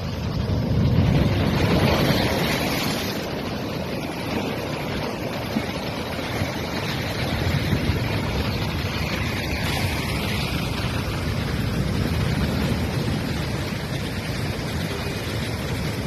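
Cyclone wind buffeting the microphone over storm surf breaking on a rock seawall, with vehicles driving through water on the flooded coastal road.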